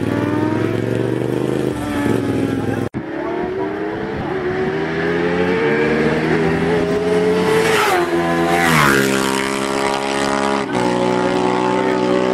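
Sport motorcycle engines at high revs, accelerating hard with a rising pitch, then a quick fall in pitch about eight or nine seconds in as a bike goes past. The sound breaks off sharply at a cut about three seconds in.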